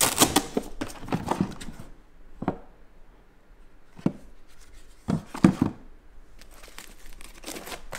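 Pieces of a diagnostic scan tool kit being handled in a hard molded plastic carrying case: a couple of seconds of clicks and rustling, then a few separate plastic knocks and clacks as parts are lifted and set back down, the loudest about five and a half seconds in.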